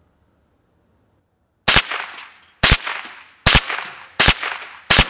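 Ruger 10/22 semi-automatic rifle firing .22 LR rounds: five shots, the first about one and a half seconds in, then roughly one every three-quarters of a second, each trailing off in an echo.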